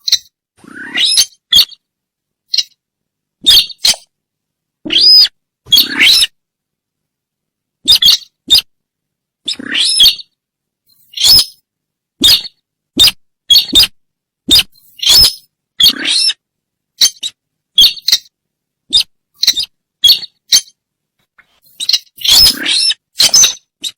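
Sintar bird lure call: short, sharp, high-pitched calls repeated one to two a second in uneven runs, with a brief pause a little before the end, then a quick cluster.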